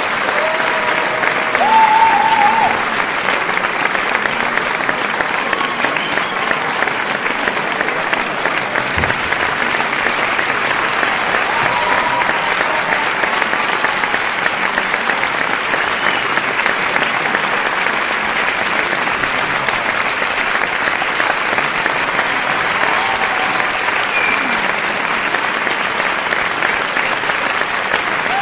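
Crowd applauding: dense, steady clapping throughout, with a few brief cheers standing out over it, the clearest and loudest about two seconds in.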